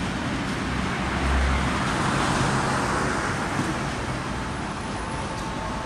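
Road traffic noise from a city street, with the hiss of tyres and engines swelling as a vehicle passes about two to three seconds in.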